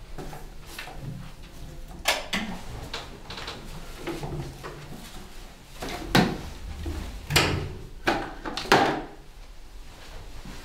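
Several sharp knocks and clatters, the loudest in the second half: a broom and a bucket being carried and knocked about as a door is passed through.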